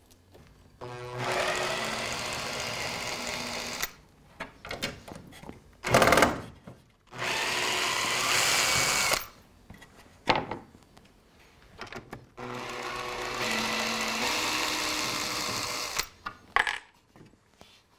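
Cordless drill-driver running in several bursts of a few seconds each, backing screws out of a plywood model-railway baseboard, with a few knocks in between.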